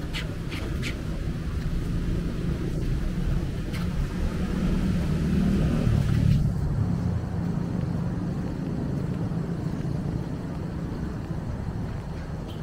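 Road traffic passing: a steady low rumble of engines and tyres that swells as a vehicle goes by about five to six seconds in, with a hiss that drops away suddenly just after. A few short high chirps sound in the first second.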